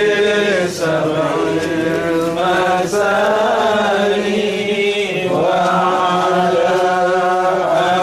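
Men chanting sholawat, Arabic praise and blessings on the Prophet Muhammad, in long held notes. The chant echoes inside a mud-brick building, and a new phrase begins about five seconds in.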